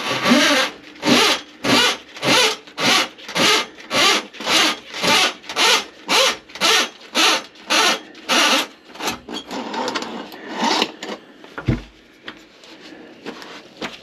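Rhythmic back-and-forth scraping strokes, about two a second, during drain-clearing work under a sink. They stop after about nine seconds, giving way to a few weaker, irregular scrapes and one dull thump.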